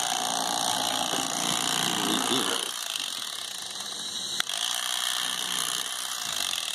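Electric fillet knife running as its reciprocating serrated blades cut through catfish meat and fins. The sound drops in level about two and a half seconds in, and a single sharp click comes a little after four seconds.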